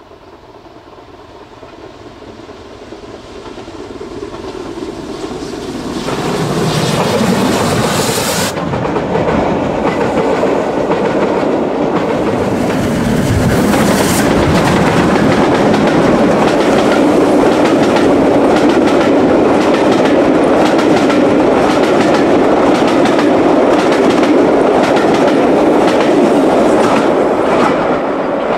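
Steam train double-headed by LMS 8F 2-8-0 No. 48151 and Merchant Navy Pacific No. 35018 at speed, growing louder over the first six seconds as it approaches. The locomotives pass close, and the coaches follow with a steady, rapid clickety-clack of wheels over rail joints.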